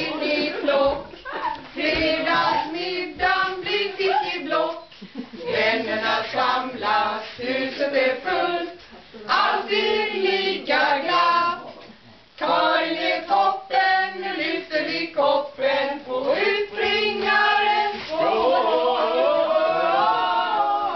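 A small group of men and women singing together without accompaniment, a homemade birthday song. There is a brief break about 12 seconds in, and the voices hold longer notes near the end.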